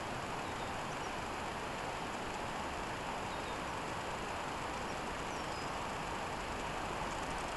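Steady outdoor ambient hiss with a few faint, brief bird chirps scattered through it.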